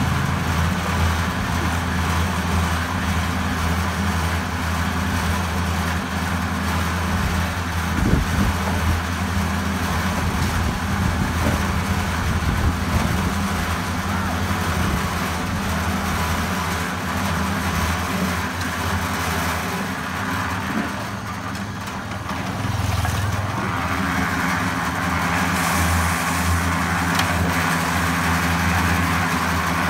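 Drum concrete mixer running steadily, its motor humming as the drum turns. There is a sharp knock about eight seconds in, and the sound grows rougher from about twenty-four seconds on.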